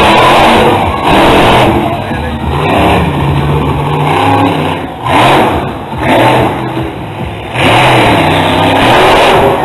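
Monster truck's supercharged V8 engine revving hard on and off the throttle, easing off twice in the middle and opening up to full throttle again near the end.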